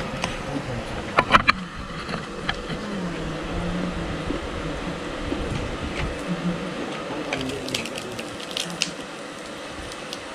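Cutlery clinking and clicking against a platter and dishes as a crisp deep-fried whole pig is carved. A sharp cluster of clicks comes about a second in, and more scattered clicks come near the end, over a low murmur of background voices.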